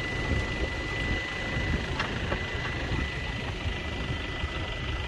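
Toyota Hilux pickup engine idling steadily with a low rumble and an even hiss over it, with a light clink about two seconds in.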